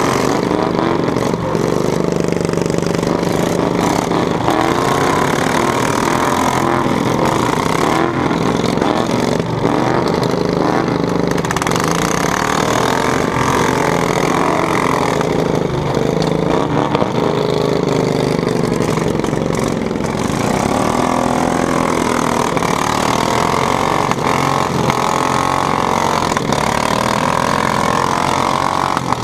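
Several riding lawn mower engines running at once, the nearest with short straight exhaust stacks, their pitch rising and falling as they rev. A few sharp knocks come through the engine noise.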